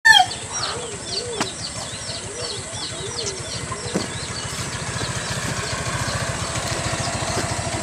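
Small motorcycle engine idling with an even beat, starting about four seconds in. Before that, a run of quick repeated high chirps like a bird calling.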